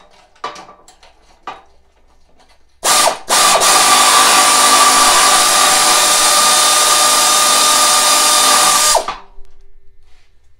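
Pneumatic air ratchet with a 9/16 socket spinning off a nylock nut: a short blip about three seconds in, then a steady run of about five and a half seconds with a high whine, stopping abruptly. A few light clicks come before it.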